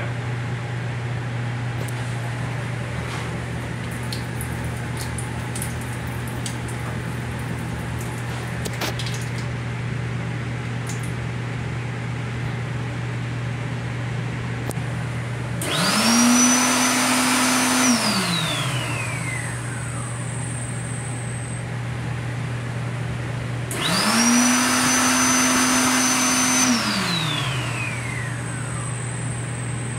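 Hand dryer in a train restroom switching on twice: each time its motor spins up with a rising whine, blows loudly for about two to three seconds, then winds down with a falling whine. A steady low hum sounds underneath throughout.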